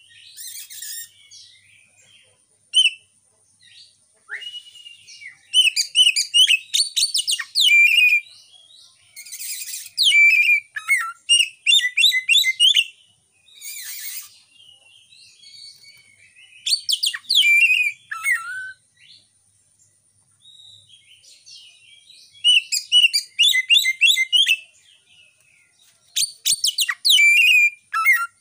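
Oriental magpie-robin singing in repeated bursts of fast, varied whistles and chattering phrases, each burst a second to a few seconds long with short pauses between.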